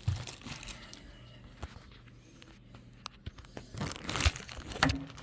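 Plastic parts bag and packaging crinkling and rustling as they are handled, in short spells with a quieter stretch in the middle and a few light clicks.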